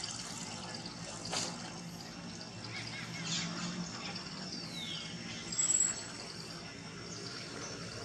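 Outdoor ambience of scattered bird chirps over a steady high-pitched whine and a faint low hum, with a short louder sound about five and a half seconds in.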